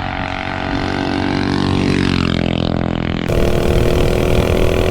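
Minibike's single-cylinder stage 3 engine pulled up through the revs under throttle: the note climbs steadily, holds high, then changes abruptly to a steadier running sound about three seconds in. The rider finds it flat at the top end and suspects it is running lean.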